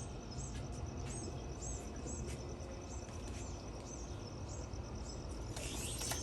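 Birds chirping outdoors: short high chirps repeating about twice a second, over a steady high-pitched insect-like trill, with a louder flurry of chirps near the end.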